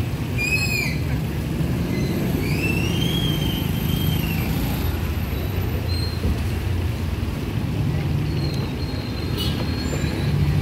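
Steady low engine rumble of street traffic, with a couple of brief high whistling sounds in the first few seconds.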